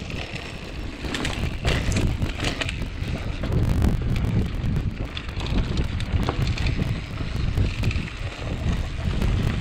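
Mountain bike rolling fast down a dirt singletrack, with wind buffeting the microphone as a steady low rumble and the bike rattling and clicking over bumps in the trail.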